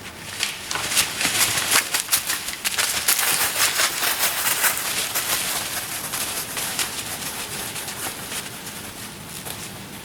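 Deer bucks fighting: antlers clattering and grinding in a dense run of clicks and rustling that starts suddenly and eases off toward the end.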